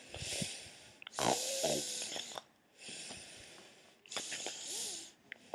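A person snoring: several long, hissy breaths in and out, one of them with a wavering whistle.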